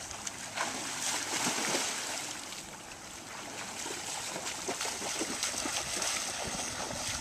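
A swimmer's strokes splashing through the water, a light, irregular patter of small splashes.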